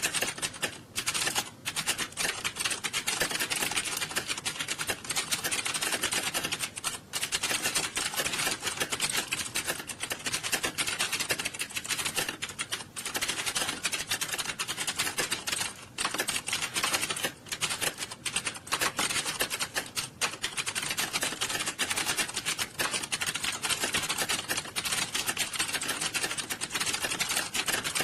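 Many computer keyboards being typed on fast at once, a dense unbroken clatter of keystrokes with only brief momentary lulls.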